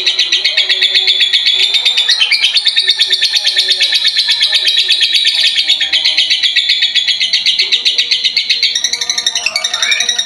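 Masked lovebird chattering in one long, unbroken run of rapid high chirps, many a second, with a few quick pitch sweeps about two seconds in and near the end; faint music underneath.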